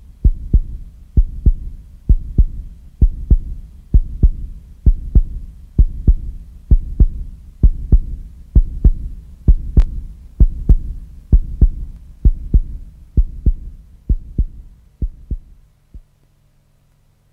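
Heartbeat sound: a steady lub-dub of paired low thumps, a little more than one pair a second, fading out about fifteen seconds in and leaving a faint low hum.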